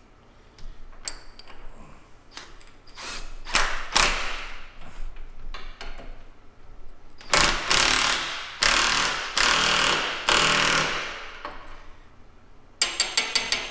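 Ratcheting wrench working a nut down onto a dump truck tailgate's hinge bolt: scattered metal clicks, then four bursts of fast ratcheting a little past the middle, and a quick run of about seven even clicks near the end.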